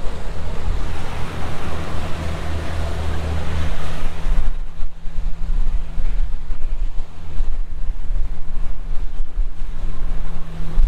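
Water rushing along the hull of a diesel trawler under way, with wind buffeting the microphone over a steady low engine hum. The rushing hiss is loudest for the first four and a half seconds, then drops back.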